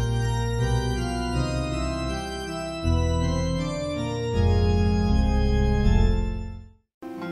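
Slow organ music playing sustained chords that change every second or two, fading out near the end and followed by a brief silence.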